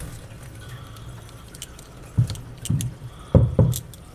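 Small metal parts of a Marx 666 toy-train motor clicking and clinking as the top plate is worked into place over the pickup assembly. A few louder knocks come in the second half as the parts are pressed together.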